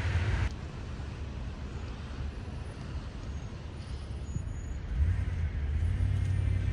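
Low, steady rumble of road traffic, a heavy vehicle's engine among it, with a deeper hum building about five seconds in.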